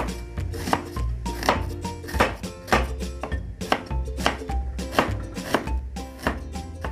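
Knife chopping on a cutting board in slow, steady strokes, roughly three every two seconds, over background music.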